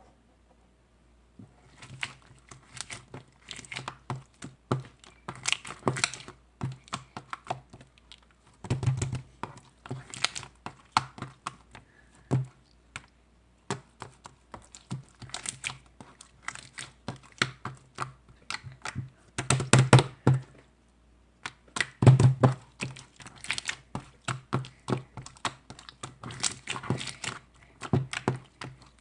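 Rapid, irregular clicking and tapping, like typing, in bursts that pause briefly a few times.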